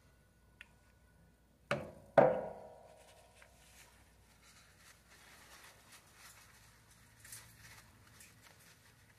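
Two sharp clacks about half a second apart as small metal fishing-reel parts are set down on a plastic work tray, the second louder with a brief ring. Then faint rustling of a paper towel with light clicks of parts being handled.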